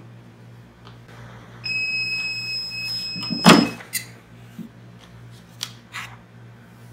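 Heat press timer sounding a steady electronic beep for about two seconds as the set press time runs out. Near the end of the beep comes a loud clunk as the press lid is released and swings open.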